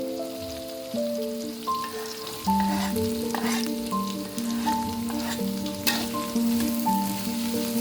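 Food sizzling in hot oil in a wok and being stirred, with a spatula scraping the pan a few times. Background instrumental music with a stepping melody plays throughout.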